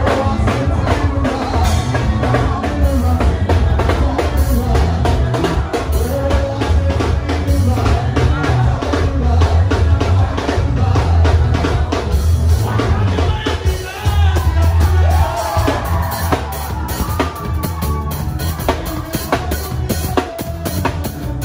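Band music with a drum kit keeping a steady beat over a heavy bass line.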